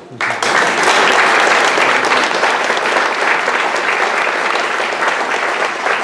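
Audience applauding, breaking out all at once just after the start and then holding steady and loud.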